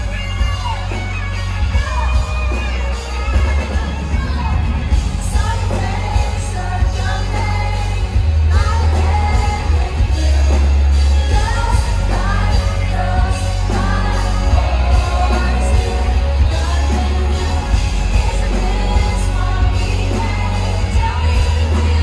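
Live pop song played loud through a concert PA: a woman singing lead over a band with electric guitar, drums and very heavy bass, heard from the audience.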